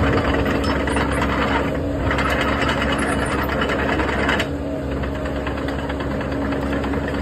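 Caterpillar mini excavator's diesel engine running with a steady hum, louder for the first four seconds or so, then settling slightly lower.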